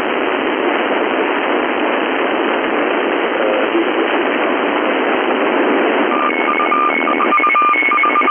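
Steady hiss of an 11-metre FM radio receiver on an open channel, heard through the receiver's narrow audio band. About six seconds in, two beeping tones, one higher than the other, start switching on and off over the hiss.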